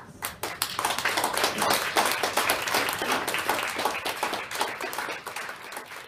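Audience applauding, many hands clapping. It builds quickly in the first second or so, then slowly tapers off.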